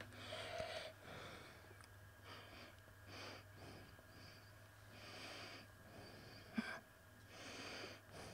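A person breathing and sniffing close to the microphone: short noisy breaths about once a second, with a sharper sniff or click about two-thirds of the way through, over a faint steady hum.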